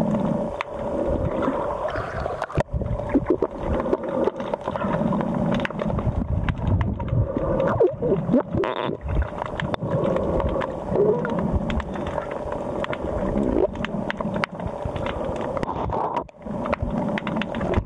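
Underwater sound picked up by a submerged camera: a steady hum with water gurgling and many scattered clicks and knocks.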